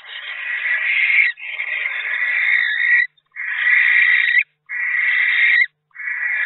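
Barn owl giving a run of long rasping hisses, about five in a row, each a second or so long with short breaks between.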